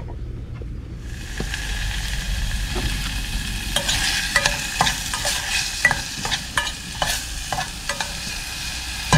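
Diced carrot and celery frying in a stainless steel saucepan: a steady sizzle sets in about a second in, with a spoon scraping and clicking against the pan as the vegetables are stirred.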